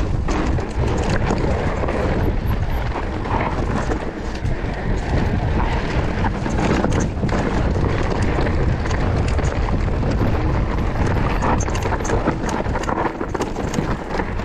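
Wind rushing over the microphone and a mountain bike's tyres running over a rough, rocky trail, with frequent small knocks and rattles from the bike.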